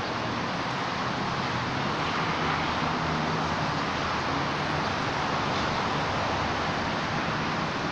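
Steady outdoor background noise: an even hiss with a faint low hum beneath it, unchanging throughout.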